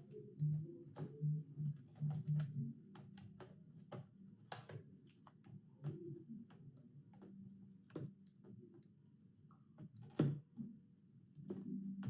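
Small plastic clicks and taps of hands handling a laptop and plugging a 30-pin flex cable into the back of a replacement laptop screen, with a sharper knock about ten seconds in, over a steady low hum.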